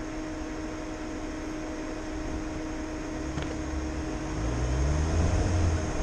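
Car engine and road noise, the engine note rising from about halfway through as the car speeds up, getting louder toward the end.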